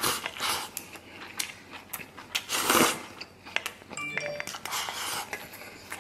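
Eating sounds: food slurped off chopsticks and chewed, loudest about two and a half seconds in. Around four seconds in, chopsticks clink against a stainless-steel bowl with a brief metallic ring.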